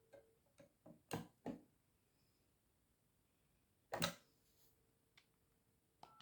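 Scattered plastic clicks and knocks from handling a corded landline phone, with a faint steady dial tone underneath in two stretches.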